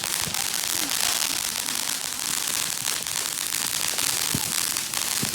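Fireworks crackling in a dense, steady rapid patter, with a couple of louder pops near the end.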